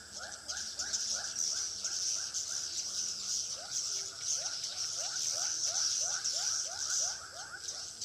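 Edible-nest swiftlets calling inside a swiftlet house with the lure speakers off: a steady run of short chirps, about two or three a second, over a continuous high twittering hiss.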